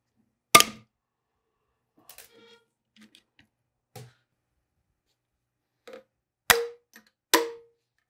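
Sharp metal-on-metal knocks with a short ring: a small hammer tapping the valve spring retainers on a 6.7L Cummins cylinder head to break the tapered valve keepers loose. There is one loud knock just under a second in and two more near the end, with lighter clinks between them from valve springs set down on a steel bench.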